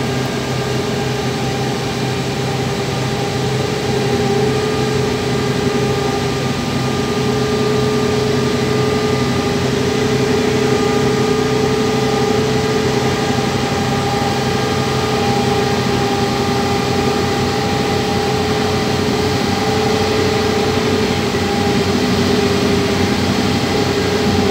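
Diesel power pack of a self-propelled modular transporter running steadily while the multi-axle transporter carries a heavy crane body: a constant engine drone with a steady whine over it.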